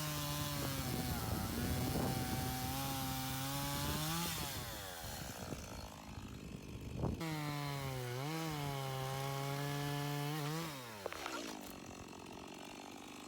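Chainsaw cutting logs: held at high revs for about four seconds, dropping back, then run up again for about three and a half seconds before winding down to idle near the end. A sharp click comes just before the second run.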